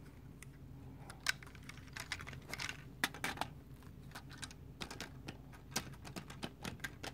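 Small, irregular plastic clicks and clacks of a LEGO train car being handled and set down on plastic LEGO track.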